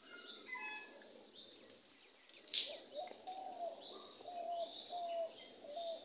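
Birds calling in the trees: a run of short repeated calls and higher chirps, with one brief sharp sound about two and a half seconds in that stands out above them.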